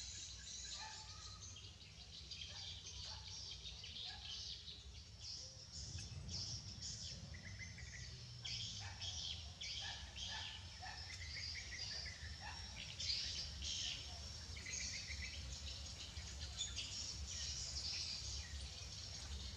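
Birds chirping outdoors: many short, high calls, overlapping at times, over a faint low steady hum.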